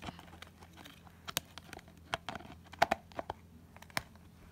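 Scattered sharp clicks and light scratching taps of a pet hamster moving about close to the microphone, the strongest about a second and a half in, twice near the middle and once near the end.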